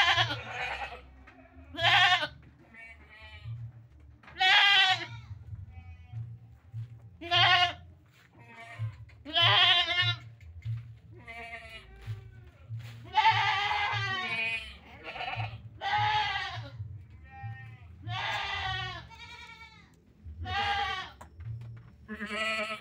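Goats bleating again and again: about a dozen loud, wavering calls with short pauses between them.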